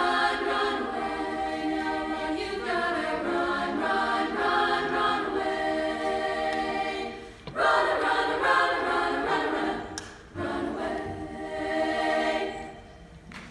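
Women's choir singing sustained chords in harmony, unaccompanied, with two brief breaks about seven and a half and ten seconds in. The last chord swells and then fades away at the close of the piece.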